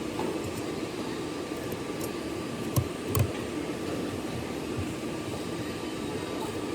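Steady whirring machine noise, like a fan, with a faint steady high tone; two short clicks about three seconds in.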